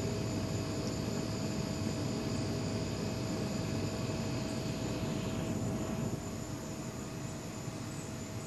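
Steady low rumbling background noise with a faint steady hum through it, easing slightly about six seconds in.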